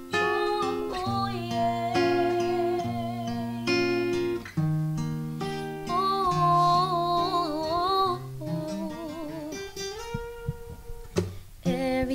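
Steel-string acoustic guitar played in a slow instrumental tune of plucked, held notes.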